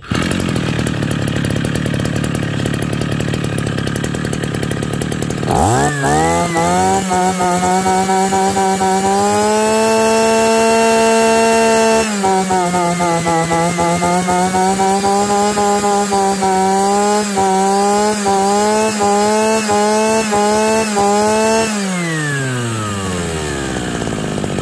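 Shindaiwa S35F brush cutter's 35cc two-stroke engine idling, then revved up sharply about five seconds in and held at high revs with the pitch wavering, before it is throttled back and falls to idle near the end.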